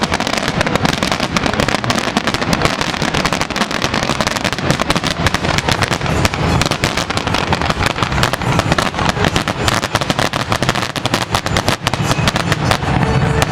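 Fireworks finale: a continuous barrage of aerial shell bursts and crackle, many bangs a second with no break between them.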